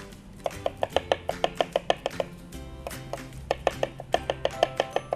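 Chef's knife chopping garlic on a plastic cutting board: fast runs of sharp taps, about six or seven a second, with a short pause about halfway through.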